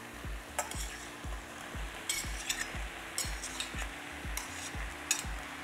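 A metal spoon scraping and clinking against a plate as grilled sweet-potato slices and tofu are pushed off into a hot pan, in a string of short scrapes. Underneath, the pan of vegetables sizzles steadily.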